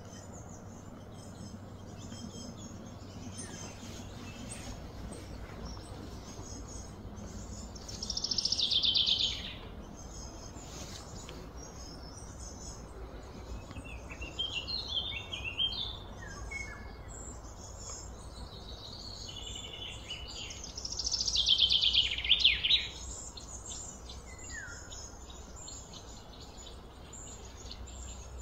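Birds chirping and calling, with two louder runs of rapid notes sliding downward, each about a second and a half long, about eight seconds in and again about twenty-one seconds in, over a steady low rumble.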